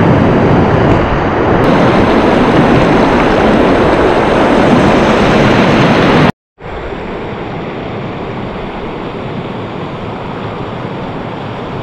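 Waterfall's water rushing in a loud, steady roar. It cuts out abruptly a little after halfway and comes back quieter and steady.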